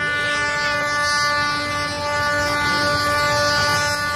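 Bangladesh Railway diesel locomotive's air horn blowing one long, steady blast that starts suddenly, over the low rumble of the approaching train.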